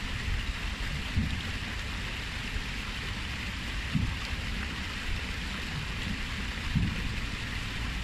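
Water cascading down the stone steps of a fountain into a pool, a steady splashing hiss, with a few brief low rumbles.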